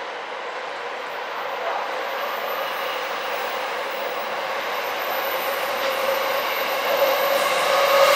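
Electric commuter train approaching along the track, its running noise growing steadily louder, with a whining tone coming in over the last few seconds.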